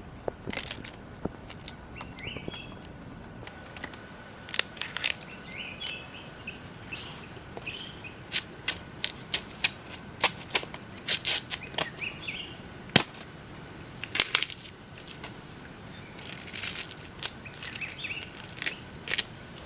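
Irregular sharp snaps and crackles of bamboo shoots being broken and peeled open by hand, some in quick clusters, with faint bird chirps now and then.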